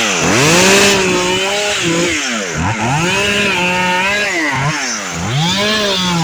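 Chainsaw revved up three times, each time held at full speed for about two seconds and then let drop, as fronds are cut off a cabbage palm.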